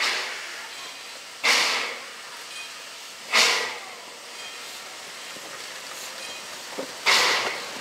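Ex-South African Railways NG G16 Beyer-Garratt steam locomotive working slowly, giving separate hissing chuffs of steam: three in the first few seconds, a longer pause, then another near the end, over a steady low hiss.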